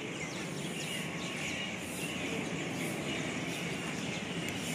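Town street background noise: a steady hum of passing traffic, with faint short bird chirps above it.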